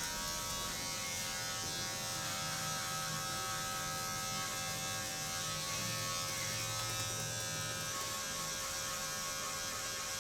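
Steady electric buzz of a small handheld motorised device, even in level throughout, with a fainter low rubbing that comes and goes.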